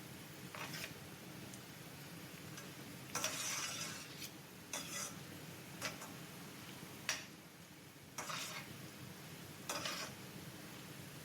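Spatula stirring bitter gourd pieces frying in ghee in a pan: about seven short strokes over a faint, steady sizzle.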